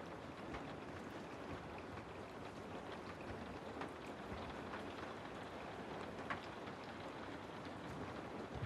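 Steady rain falling through trees, an even hiss with scattered individual drops ticking close by.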